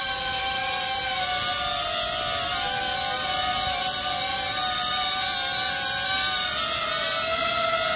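Hover Camera Passport quadcopter hovering close by, its propellers and motors giving a steady high whine whose pitch wavers gently as it holds position and turns.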